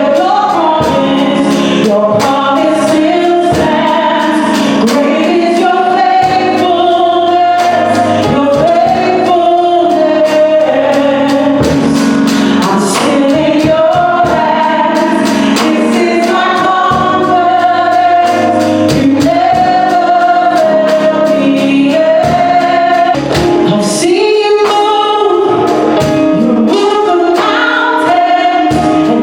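Gospel worship song: several voices singing together over instrumental accompaniment with a steady beat.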